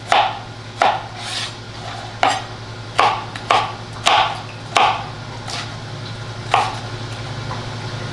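Chef's knife slicing bell pepper on a plastic cutting board: about ten crisp cuts, each a crunch through the pepper and a tap on the board, roughly one every three-quarters of a second.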